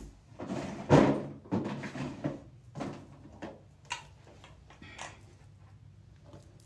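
A series of sharp knocks and bumps, the loudest about a second in, thinning out after about five seconds.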